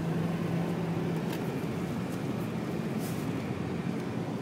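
Car engine running as the car is driven through snow, heard from inside the cabin over steady road and tyre noise. A steady engine hum stands out for about the first second, then fades into the road noise.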